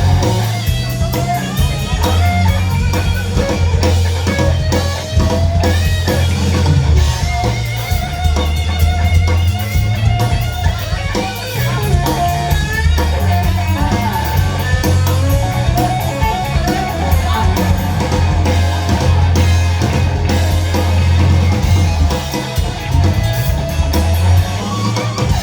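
Blues band playing an instrumental passage: an electric guitar lead with bending notes over bass guitar and drum kit.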